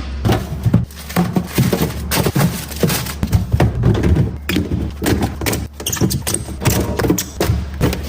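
Dense, irregular taps, knocks and thuds of items and containers being handled in a refrigerator for ASMR, over a steady low hum.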